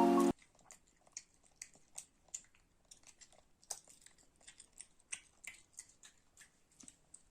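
Faint, irregular crunching and clicking, about two to three a second, like a pet chewing dry food. Background music cuts off just after the start.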